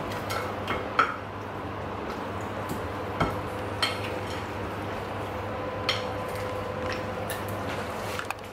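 Hands rubbing seasoning into raw meat chops in a ceramic bowl, with a handful of sharp clinks and knocks against the bowl, the loudest about a second in, over a steady low hum.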